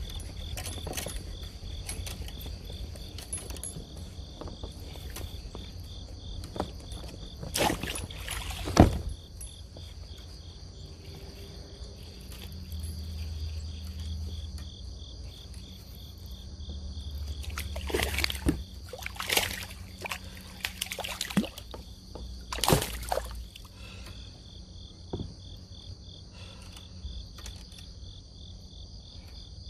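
Insects chirring steadily in a fast even pulse, over a low wind rumble on the microphone. Several sudden loud splashes or knocks break in, the loudest about nine seconds in and a cluster later on, while a bass is played and landed beside the small inflatable boat.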